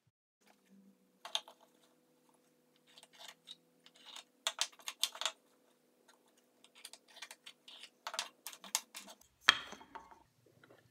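Light clicks, taps and scratches of plywood mallet pieces being handled and traced around with a pencil on a workbench. A louder knock comes near the end, and a faint steady hum runs underneath.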